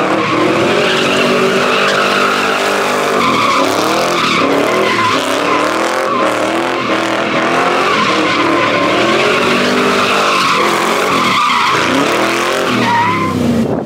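A car doing donuts: its tires squeal and skid continuously on the asphalt while the engine revs up and down over and over.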